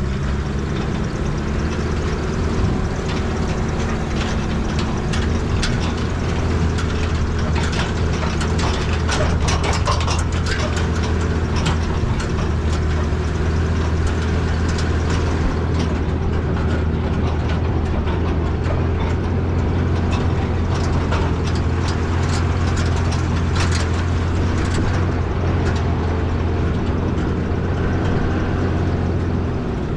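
Nissan Patrol 4x4's engine running steadily under load as the vehicle works up a steep, rough track. It gets louder about five seconds in, with knocks and rattles from the body over the bumps.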